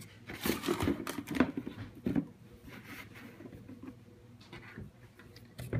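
Tissue paper rustling and crinkling in a cardboard shoebox as shoes are handled. Loudest over the first two seconds, with sharp crackles, then quieter, scattered rustling and light knocks against the box.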